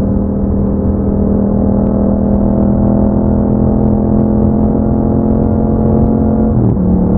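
Yamaha MT-07's 689 cc parallel-twin engine through an Akrapovic aftermarket exhaust, pulling steadily under way with its pitch slowly rising. Near the end the note breaks briefly and drops to a lower pitch, as in an upshift.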